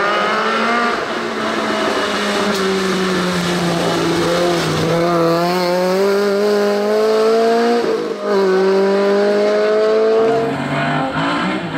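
Rally car engines at full throttle, the pitch climbing through each gear and dropping at every upshift, about three to four seconds apart, over the hiss of tyres throwing spray on a wet road.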